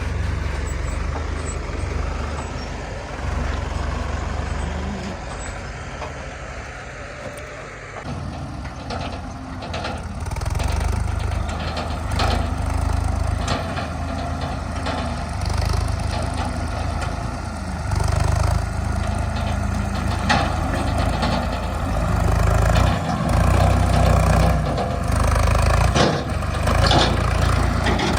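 Heavy diesel engines of a working backhoe loader and tractor, running with the pitch rising and falling under changing load, with scattered knocks and clanks from about eight seconds in. The sound grows louder in the second half.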